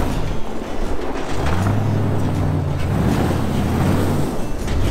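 Engine of a large International-bodied off-road wrecker truck running as the truck drives and swings around on its first run under its own power. The engine note rises about two seconds in, holds, then eases off near the end.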